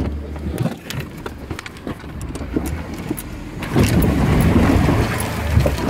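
Jeep engine pulling under load as it rock-crawls up a ledge, with scattered knocks and clicks from tyres and running gear on the rock. The engine gets much louder about two-thirds of the way through as it climbs.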